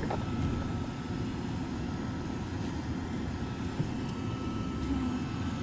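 Steady low rumble of a car's engine and tyres heard from inside the cabin as it drives along.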